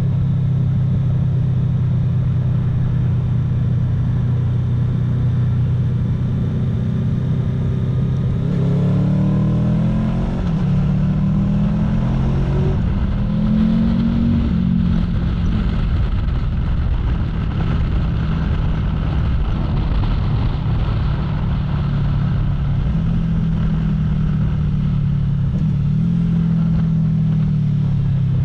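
Honda VFR800F's V4 engine heard from onboard while riding, with wind noise. It runs steadily at first; about eight seconds in, the pitch climbs in several steps, as when accelerating up through the gears. It then settles, rises once more and drops near the end as the bike slows for a bend.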